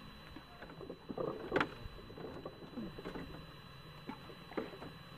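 Groundbait thrown from a plastic bowl into the reservoir, with scattered light knocks and small splashes, the loudest about one and a half seconds in and another near the end.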